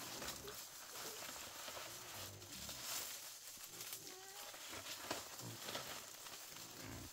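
Pigs grunting in short, low, repeated grunts, with a few higher-pitched calls among them.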